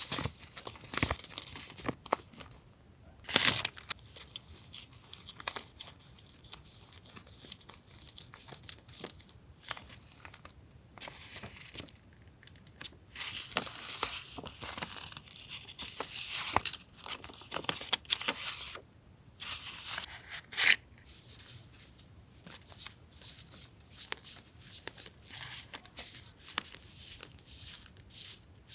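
Paper being torn and crinkled by hand for a journal collage: irregular scratchy rustles and tears with a few sharp clicks, loudest around 3 s in, through the middle, and in one sharp tear about 21 s in.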